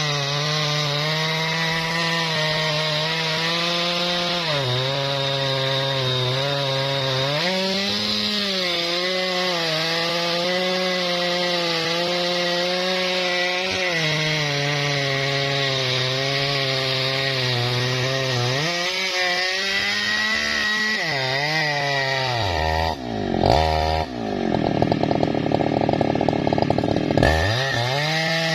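Jonsered chainsaw ripping lengthwise through a tough bendo log, its engine running at high speed under load with the pitch sagging now and then as the chain bites. About 23 s in the engine bogs down hard and runs louder and rougher for a few seconds before picking back up near the end.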